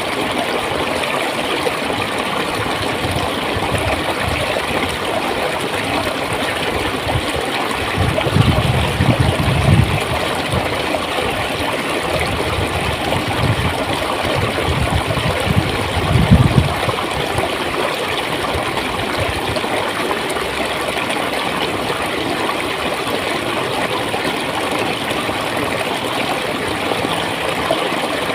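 Clear stream water flowing and gurgling steadily, with deeper, louder surges twice: about a third of the way in and again just past the middle.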